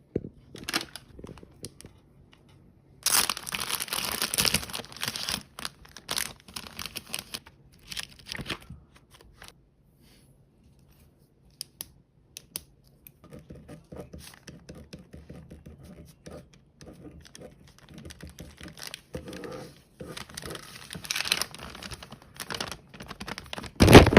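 Intermittent rustling and crinkling in bursts, with scattered clicks: a long burst about three seconds in, softer handling through the middle, more rustling near the end, and a short loud knock at the very end.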